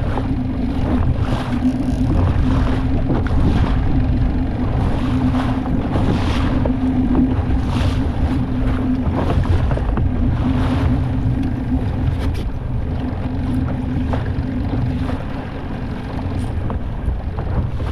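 Outboard motor on a small inflatable boat running at a steady pitch, with wind buffeting the microphone and water splashing against the hull every second or two.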